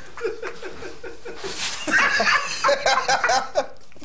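A man laughing in a run of short chuckles, with a breathy burst about a second and a half in.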